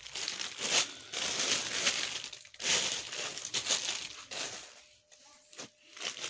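Clear plastic garment wrappers and a plastic sheet crinkling and rustling as clothes are moved about by hand, in several loud bursts over the first four seconds or so, then a few fainter rustles and clicks.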